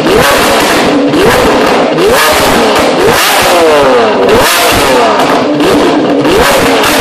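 Lamborghini Aventador LP720-4 Roadster's V12 with a Fi valved exhaust, revved repeatedly while standing: sharp throttle blips, the pitch rising and dropping back about once a second, with a run of quicker blips near the middle.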